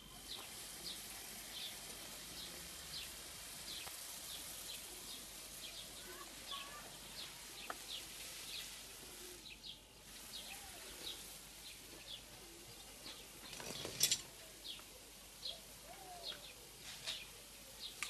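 Steady high hiss of water spraying from the wand of a homemade compressor-driven pesticide sprayer, under about 3 bar of pressure, with short high chirps repeating about once or twice a second. A brief louder noise comes about fourteen seconds in.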